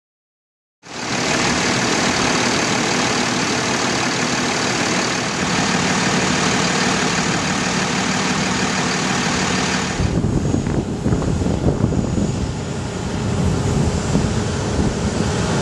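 Freightliner M2 truck's turbocharged engine idling, heard close up in the open engine bay with a strong steady hiss, starting about a second in. About ten seconds in it changes to the truck idling in the open with wind buffeting the microphone in uneven low rumbles.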